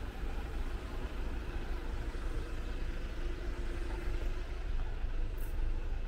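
Idling diesel engines of parked highway coaches and trucks: a steady low rumble, with a brief high hiss a little after five seconds in.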